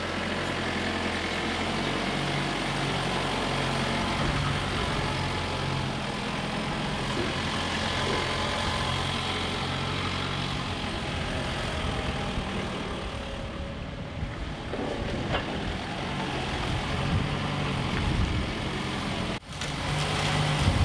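Toyota forklift engine running at a steady idle, its note shifting unevenly through the middle as the forklift is driven and worked.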